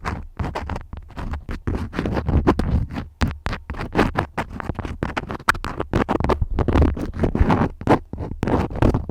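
Wax crayons scratching and rubbing close to the microphone in quick, uneven strokes, with a low rumble from contact handling.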